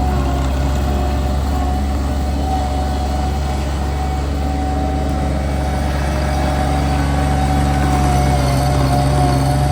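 Bobcat MT100 walk-behind loader's engine running steadily, with a mid-pitched whine that wavers slightly above it.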